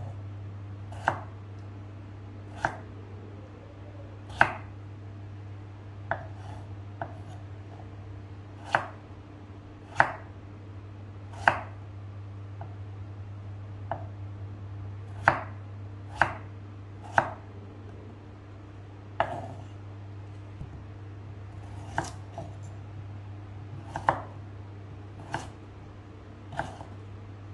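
Kitchen knife chopping raw potato, and near the end carrot, on a wooden cutting board. Each cut ends in a single sharp knock of the blade on the board, irregularly spaced every second or two, over a steady low hum.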